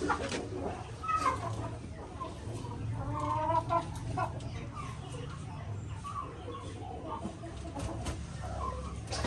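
Shamo gamefowl clucking, short pitched calls scattered through, with a busier cluster about three seconds in.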